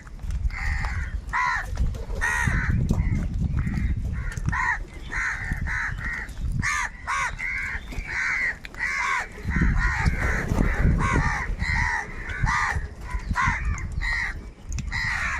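A flock of crows cawing: many short, harsh caws overlapping one another without a break, over a low rumble.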